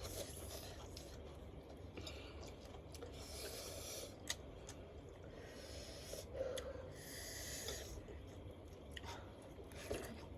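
Faint chewing and several short, hissing breaths drawn through the mouth while eating extra-spicy instant noodles, the sharp intakes of air of someone whose mouth is burning from the chilli.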